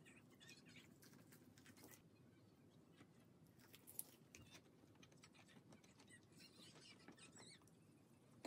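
Near silence: faint room tone with scattered faint small clicks and taps, one sharper tick about four seconds in.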